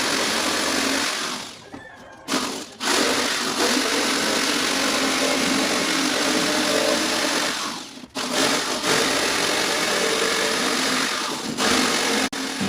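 Handheld electric power tool running in long stretches, a dense whirring noise with a brief stop about two seconds in and a short dip around eight seconds.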